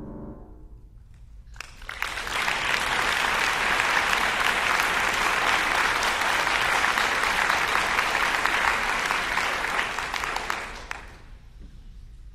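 The last chord of a Steinway concert grand piano dies away, then an audience applauds steadily for about nine seconds. The applause fades out near the end.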